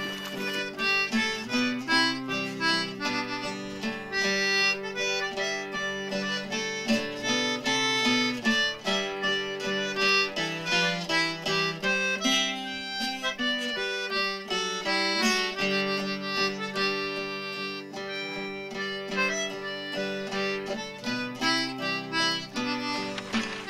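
Instrumental background music: a harmonica melody over plucked acoustic guitar.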